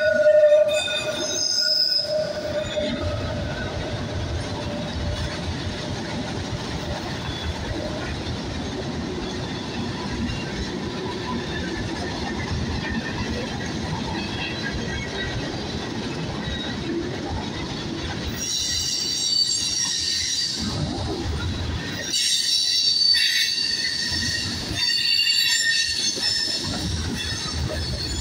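Freight train rolling past with a steady rumble of wheels on rail. High-pitched wheel squeal comes in near the start and again, stronger and on and off, over the last ten seconds.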